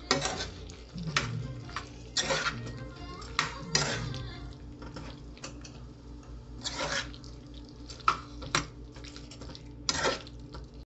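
Perforated metal spatula scraping and clacking against an aluminium pan while boiled potato chunks are stirred and turned, with irregular strokes about once a second.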